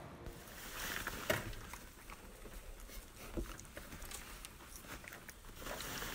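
A small dog gnawing on a chew: scattered clicks and crunches of its teeth, with a sharper knock about a second in.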